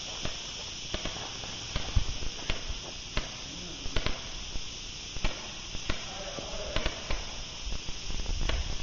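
Airsoft guns firing: a dozen or so sharp single pops at irregular intervals.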